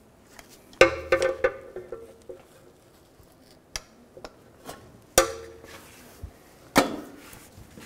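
A screwdriver clinking and tapping against the metal of a front drive shaft and its yoke while a boot is pried back. A few sharp metallic clanks with a brief ring, about a second in, about five seconds in and near seven seconds, with lighter taps between.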